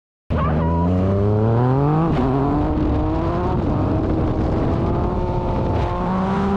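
Motorcycle engine accelerating hard: its pitch climbs for about two seconds, drops sharply at a gear change, then rises more slowly and holds steady at speed.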